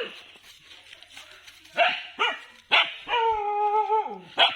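Dog barking: several short, sharp barks, then one longer drawn-out call lasting about a second and falling at its end.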